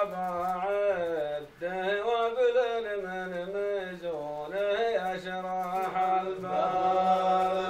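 A man chanting verses unaccompanied, in long drawn-out melodic phrases with held notes, in the style of sung Arabic poetry. He takes a breath between phrases twice.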